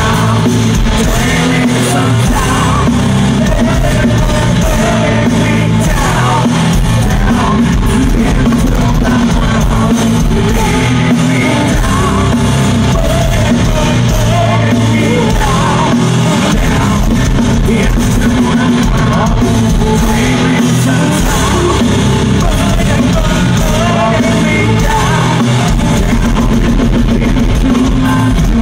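Loud live nu-metal band playing, with distorted electric guitars, bass and drums, heard from within the crowd in a large venue.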